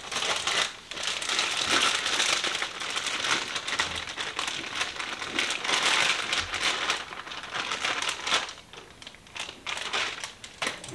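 Plastic zip-top bag crinkling as seasoned raw chicken pieces are shaken out of it into a skillet, with the chicken sizzling as it lands in hot melted butter. The noise dies down about eight seconds in.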